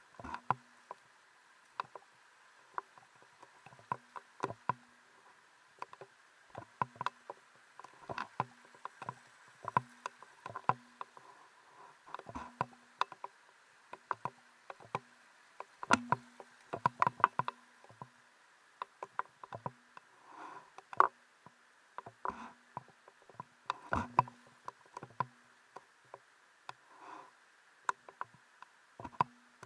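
Footsteps on wet stones while wading up a shallow rocky stream: irregular knocks, scrapes and small splashes, sometimes in quick clusters. A faint steady high hum runs underneath.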